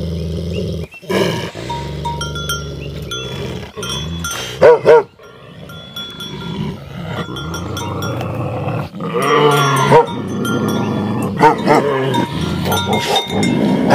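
Tibetan mastiffs fighting: a low, steady growl for the first few seconds, then two sharp, loud barks, with more snarling and barking in the second half. The metal bells on their collars clank throughout.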